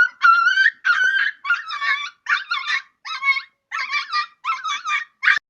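A dog giving a rapid series of high-pitched, wavering whining yelps, about two a second, which stop abruptly near the end.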